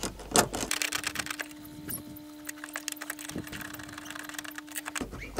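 Light metal clicks and scrapes of a nut driver and spanner working small 7 mm nuts and bolts on a metal window hinge, snugging them up. A faint steady hum sits underneath from about a second in until near the end.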